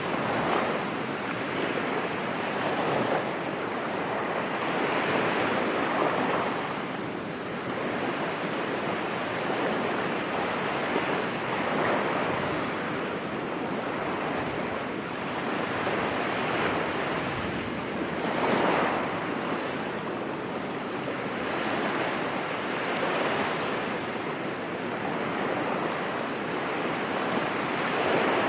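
Sea waves breaking on a beach, a continuous surf wash that swells every few seconds as each wave comes in, with wind buffeting the microphone.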